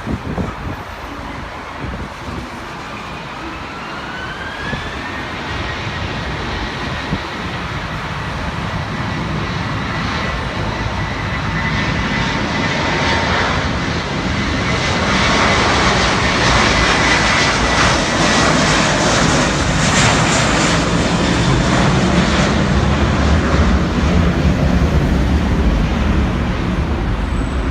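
Jet airliner's engines during takeoff: a turbine whine rises in pitch in the first few seconds, and the engine noise builds steadily louder over about fifteen seconds, then holds.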